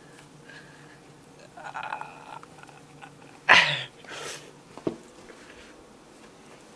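A tabby cat hissing or spitting: one sharp, loud hiss about halfway through and a second, weaker one right after, preceded a second or so earlier by a brief pitched cry. A small click follows.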